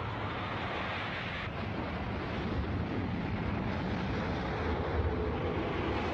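Storm sound effect: a steady rush of wind and surf with a deep rumble underneath, standing for a cataclysm.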